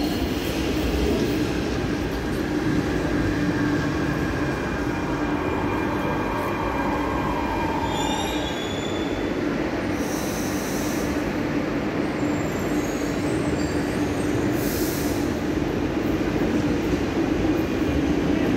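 Barcelona Metro 4000-series trains running through an underground station: a steady running hum with a whine that falls in pitch as a train brakes, wheel squeal, and two short hisses of air about ten and fifteen seconds in.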